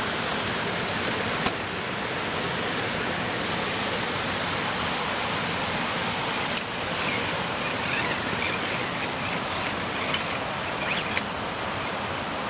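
Steady rushing of flowing river water, with a few faint clicks and ticks over it.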